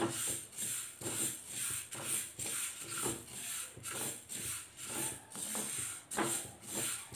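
Wooden spatula stirring and scraping dry fenugreek seeds around a nonstick pan, a rhythmic rustling scrape at about two strokes a second, as the seeds are dry-roasted until they change colour.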